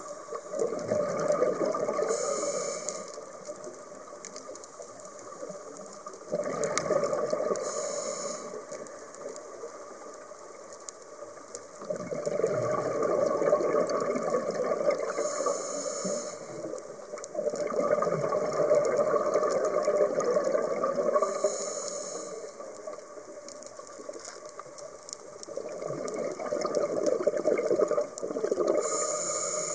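Scuba diver breathing through a regulator underwater: a short hiss on each inhale, then a long rush of exhaust bubbles on each exhale. The cycle repeats about every six to seven seconds.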